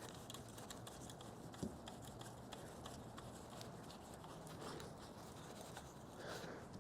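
Faint handling noise: light clicks and taps of small parts and hand tools over a low steady hiss, with one slightly sharper click about a second and a half in.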